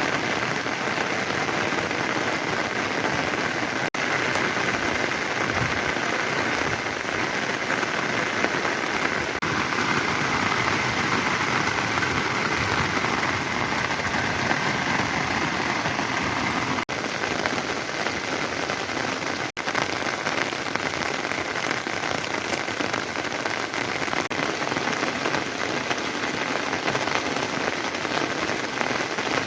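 Steady, heavy rain falling, an even hiss that breaks off for an instant a few times.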